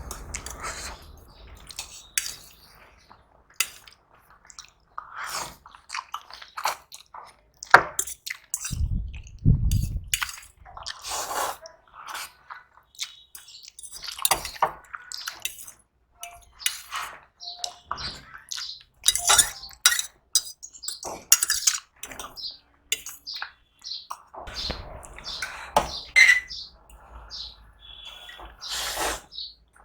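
Close-up eating sounds: irregular wet chewing and mouth smacks, with sharp clicks scattered throughout. There are two heavy low thumps about nine and ten seconds in.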